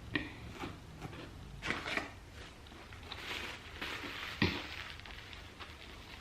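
Faint, scattered mouth sounds of someone eating: soft smacks and clicks, with one sharper click a little past the middle.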